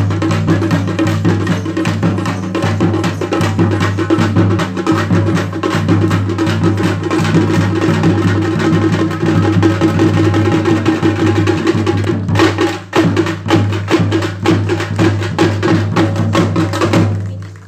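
Drum-led percussion music: fast, dense drum strikes over a steady low tone, breaking off briefly about twelve seconds in and dying away near the end.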